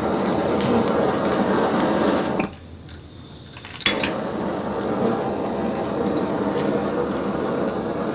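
Handheld butane blow torch on a gas canister burning with a steady rushing hiss. The hiss stops about two and a half seconds in, then starts again with a sharp click about a second and a half later and burns on.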